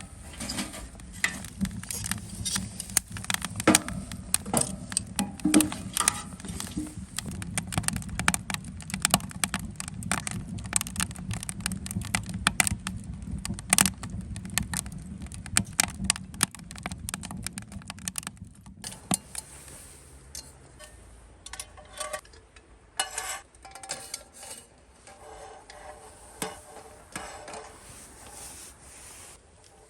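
Many small clicks and clinks of hard objects being handled, over a low steady hum that stops about two-thirds of the way through; after that the clinks come more sparsely, some of them ringing briefly.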